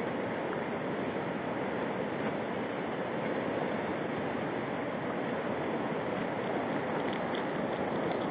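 Steady rushing noise of flowing river water, unchanging throughout.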